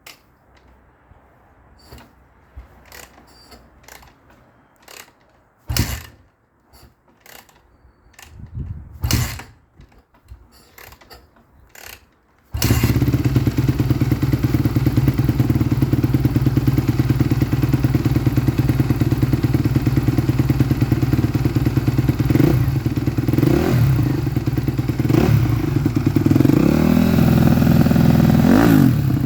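A few scattered clicks and thumps, then the Suzuki RM-Z250's single-cylinder four-stroke engine with its stock exhaust fires up suddenly about twelve seconds in and runs steadily while warming up, with a few short blips of the throttle near the end.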